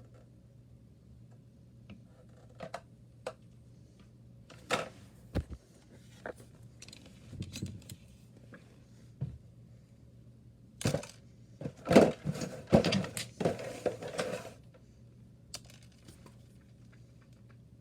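Handling noise: scattered clicks and knocks, then a busier few seconds of knocking and rustling about eleven seconds in, over a faint steady hum.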